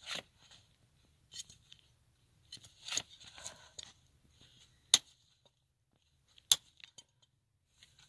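Hoof nippers cutting through a horse's hoof wall, a sharp crack at each bite, about five cuts spaced a second or so apart, with a longer crunching cut near the middle. The hoof is hard but sounds more normal than in the dry months, a little moisture having softened it.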